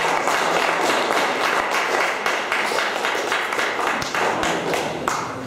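Audience applauding: a room full of people clapping, dying away near the end.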